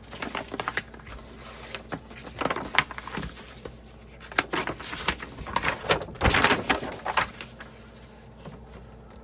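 Folded paper posters being handled and unfolded: irregular paper rustling and crinkling, busiest about halfway through.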